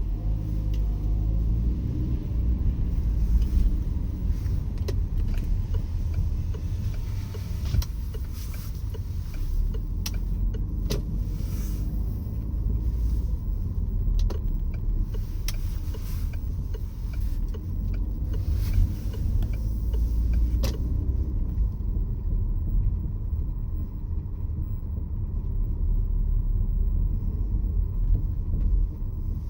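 Peugeot 508 SW on the move, heard from inside the cabin: a steady low road rumble with scattered sharp clicks or knocks, most of them in the middle stretch, then fading out. This is the abnormal noise that appears while driving.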